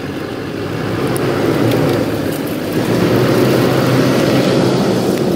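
Pickup truck's engine running, growing gradually louder.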